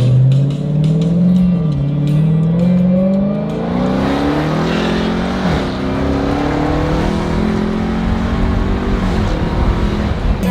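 Car engine accelerating hard through the gears, its pitch climbing and dropping back at each upshift.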